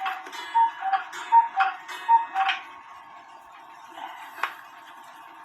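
Black Forest cuckoo clock calling: its two-note "cu-ckoo" whistle (a higher note, then a lower one) repeats about four times, roughly three-quarters of a second per call, with clicks from the mechanism. It stops about two and a half seconds in, and a single click follows near the end.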